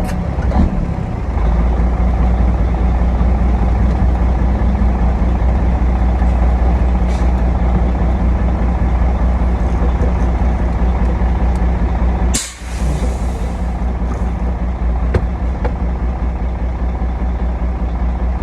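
Heavy diesel truck engine running steadily, with a sharp hiss of released air about twelve seconds in.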